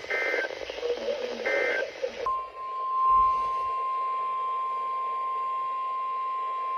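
Emergency Alert System audio over NOAA Weather Radio. Two short two-pitch digital data bursts come over radio hiss, typical of the SAME end-of-message code that closes a warning. About two seconds in, the steady 1050 Hz weather-radio warning alarm tone starts and holds.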